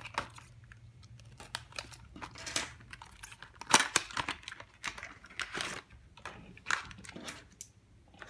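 Cardboard trading-card deck box and paper inserts handled by hand: irregular rustles, scrapes and light clicks, with a few louder swishes.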